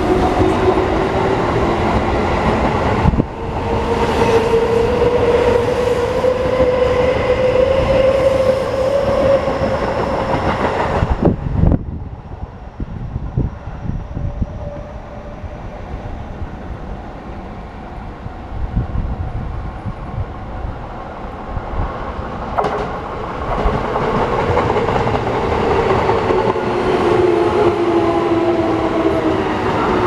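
Keio Line electric commuter trains. One pulls away with its motor whine rising in pitch as it accelerates, and the sound drops away sharply about 11 seconds in. After a quieter stretch, another train runs in with its motor whine falling in pitch as it slows into the station.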